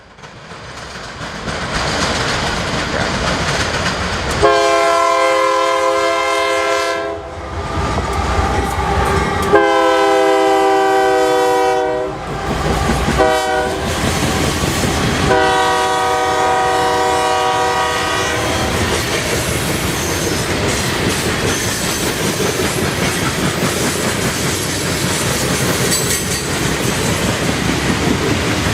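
Union Pacific diesel locomotive rolling up and sounding its multi-chime air horn in the grade-crossing pattern: long, long, short, long. After the horn, the coal train's wheels keep rumbling and clattering over the rail joints as it passes.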